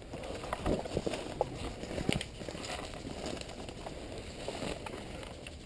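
Footsteps and rustling of leaves and undergrowth as a person pushes through brush, with a few sharp snaps or clicks in the first two seconds.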